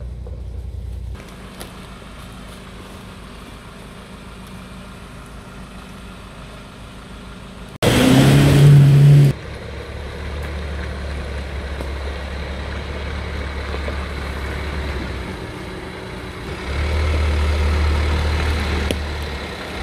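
Jeep Wrangler engine running off-road, with a very loud burst lasting about a second and a half some eight seconds in. Later the engine runs at low speed as the Jeep wades through a shallow creek, growing louder near the end as it pulls forward.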